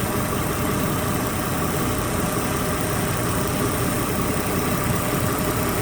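2008 Toyota RAV4's 3.5-litre V6 engine running at a steady idle.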